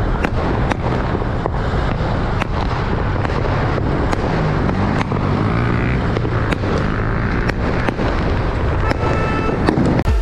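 Firecrackers and fireworks going off all around, many sharp cracks and bangs at irregular intervals, over the steady rumble of a car driving.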